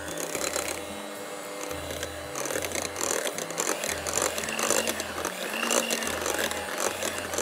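Electric hand mixer running steadily, its beaters whipping cream into a mousse mixture in a glass bowl. Background music with a steady low beat plays underneath.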